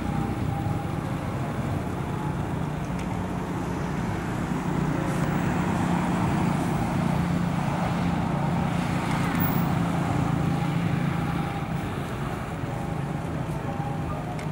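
Steady low hum of motor traffic, a little louder through the middle stretch.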